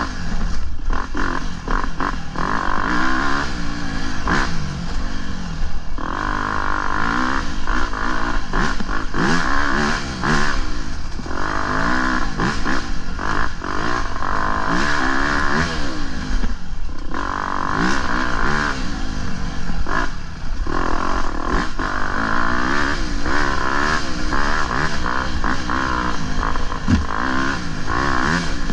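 Dirt bike engine revving up and falling off again and again as the throttle is worked, with frequent clattering as the bike goes over rocks.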